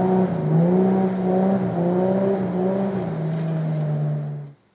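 Toyota Landcruiser 80 series engine running under load as the four-wheel drive climbs a steep, slick clay track, its pitch wavering a little up and down. The sound cuts off abruptly near the end.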